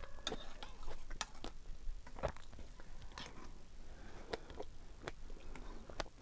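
Close-miked chewing and mouth sounds of a person eating fresh strawberries: irregular soft clicks and smacks, several a second.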